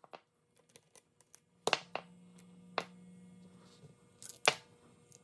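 Metal parts and tools clicking and knocking as a BMW M52 VANOS unit is taken apart by hand: a few separate sharp knocks, the loudest about two seconds in and again near four and a half seconds.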